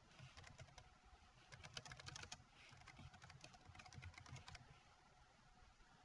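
Faint typing on a computer keyboard: quick runs of key clicks, with a short pause around two and a half seconds in, that stop a little over four and a half seconds in.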